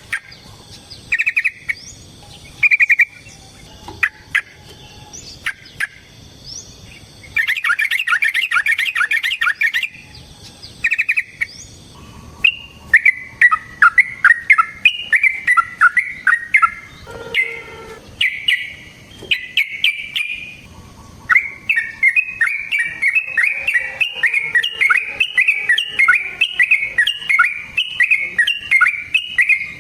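Yellow-vented bulbul (trucukan) calling: a few short chirpy phrases, then runs of fast repeated notes, the longest lasting several seconds near the end.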